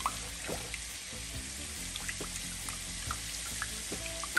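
Chicken wings deep-frying in a pan of oil, a steady hiss with scattered small pops, while a wooden spoon stirs a thin sauce in an aluminium pot.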